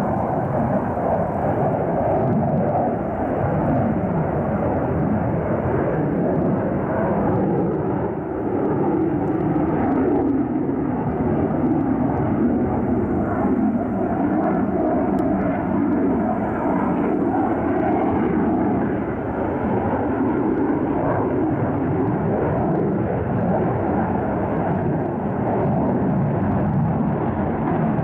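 Lockheed Martin F-35 Lightning II's single Pratt & Whitney F135 afterburning turbofan, heard from the ground as a steady, loud jet rumble while the fighter manoeuvres hard overhead. Through the middle the pitch sinks and then rises again as the jet passes and turns.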